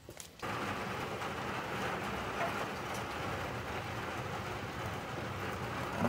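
Lawnmower engine running steadily, starting abruptly about half a second in.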